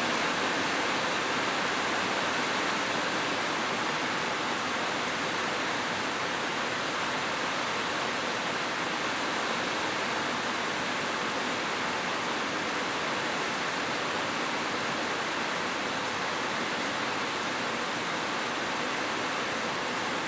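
Steady rain, an even hiss with no separate drops or thunder standing out.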